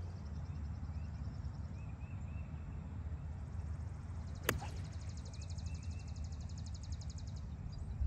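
A golf club striking the ball once about halfway through: a single sharp click. Around it a bird sings high trills of rapid, even notes, each lasting about two seconds, with softer chirps from other birds over a low steady rumble.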